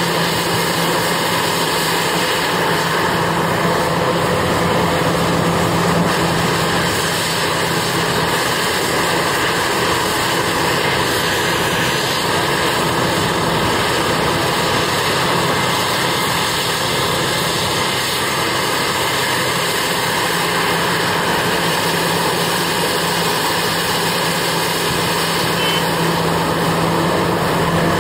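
Heavy mining machinery running under work: a large diesel engine held at a steady speed, an even, constant drone with a steady low hum.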